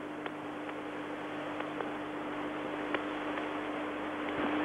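Steady hiss with a constant low hum and a few faint ticks: the background noise of an old off-air television recording of a cricket broadcast.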